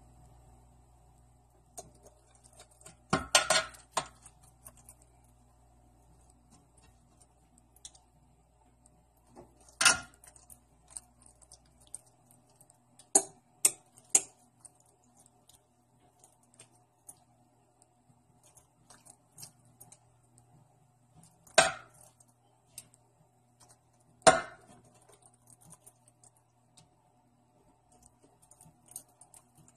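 A spoon clinking, knocking and scraping against a ceramic bowl and roasting pan as spiced melted butter is spooned over a raw turkey, with about six louder clinks among lighter ticks. A faint steady hum sits underneath.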